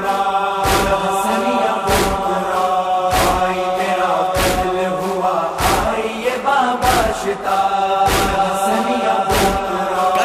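Urdu noha, a Shia mourning lament, sung in long held notes, with a steady heavy beat striking about every second and a quarter.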